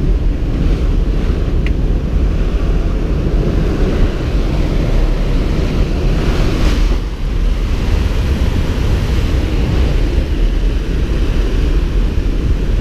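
Loud, steady rush of wind and aircraft engine noise through the open door of a skydiving plane in flight, buffeting the helmet camera's microphone.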